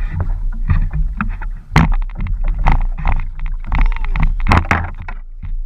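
Water sloshing and slapping against the hull and outrigger of a small outrigger boat, with irregular knocks and wind rumbling on the microphone.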